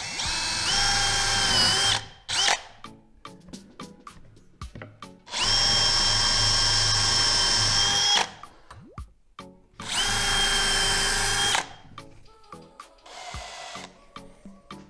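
Stanley cordless drill/driver boring pilot holes into cedar blocks, in three runs of about two to three seconds each. Each run winds up to a steady high whine. Clicks and knocks of handling the drill and wood fall between the runs.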